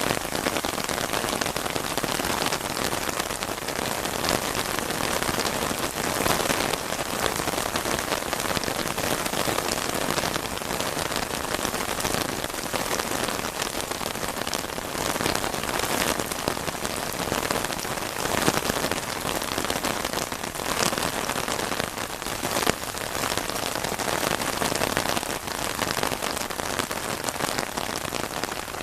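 Heavy rain falling steadily, a dense hiss made of many close drop impacts.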